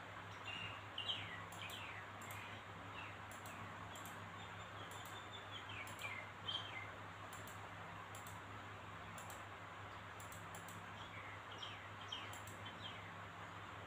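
Faint short bird chirps, each falling quickly in pitch, scattered through a steady low hum and hiss, the loudest about a second in and around six and a half seconds in.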